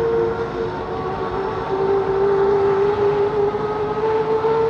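Two F-15 Eagles' small turbine starters (jet fuel starters) running before main engine start. They make a steady whine in two slightly different pitches that wander a little against each other.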